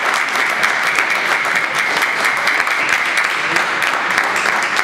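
Spectators applauding: many hands clapping steadily in a dense, even patter.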